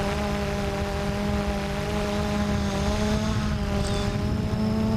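Blade 350 QX3 quadcopter's electric motors and propellers humming in flight, heard from the camera on board. The hum holds a nearly steady pitch with small wavers, over a low rumble of prop wash muffled by fur over the mics.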